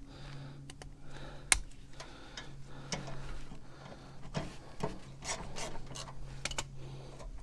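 Ratchet wrench with a 9/16 socket clicking and rasping in short, irregular strokes as it backs a loosened mower blade bolt off the deck spindle, with one sharp metal click about a second and a half in.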